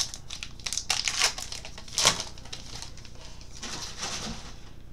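A baseball card pack's wrapper being torn open and crinkled: a run of crackling rustles, loudest about two seconds in, then fainter rustling as the cards are handled.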